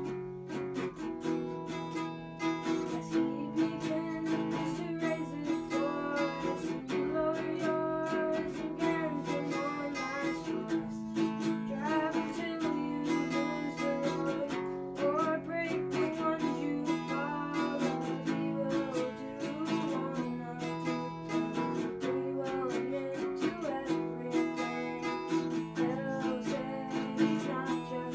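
Acoustic guitar strummed steadily in chords, with a voice singing along in stretches.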